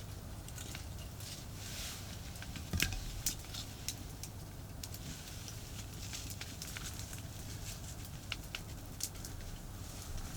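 Wood campfire crackling with scattered sharp pops, one louder pop about three seconds in, over the steady low rumble of nearby expressway traffic.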